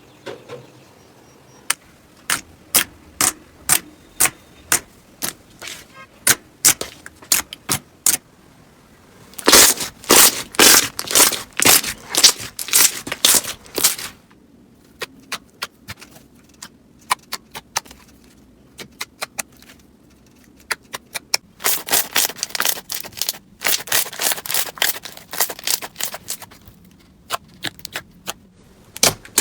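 Slime being pressed and worked by hand, giving sharp pops and crackles. Single pops come about two a second at first, then turn into dense crackling runs twice.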